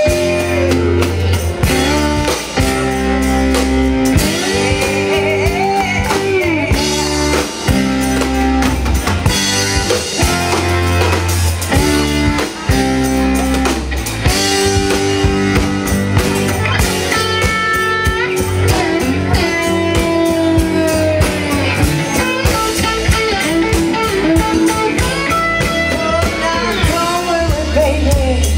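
Live band playing a blues-rock song: guitar, bass and drum kit, with a singer.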